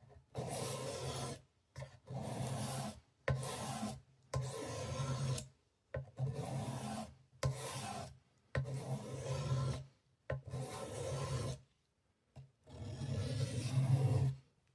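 Repeated rubbing or abrading strokes by hand, about ten of them, each roughly a second long with short pauses between.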